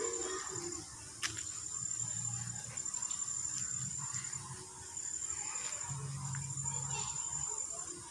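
Insects trilling outdoors: a high, steady trill that comes in stretches of about a second with short breaks, over a low hum that swells twice.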